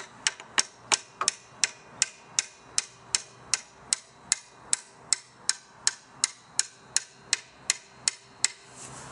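Ratchet wrench clicking as a bolt is undone: sharp, even clicks about three a second, stopping shortly before the end.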